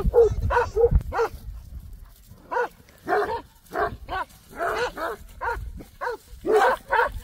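Kangal shepherd dogs barking over and over in short, quick barks, with a pause of about a second and a half soon after the start.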